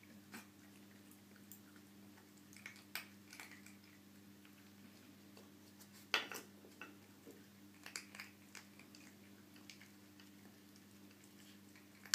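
Light wooden clicks and knocks from the pegs of a wooden dog treat-puzzle board as a puppy noses and pulls them out of their holes, with soft chewing of the treats it finds; one sharper knock about six seconds in.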